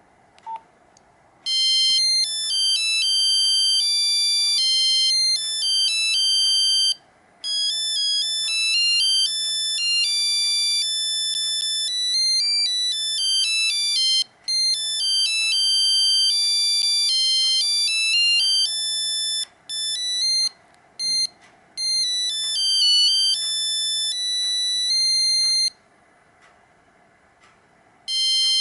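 Nokia 5125 mobile phone playing one of its built-in monophonic ringtones: a quick melody of electronic beeps, one note at a time, with a few short breaks. The melody stops about 26 seconds in and starts again just before the end, and a short blip sounds about half a second in.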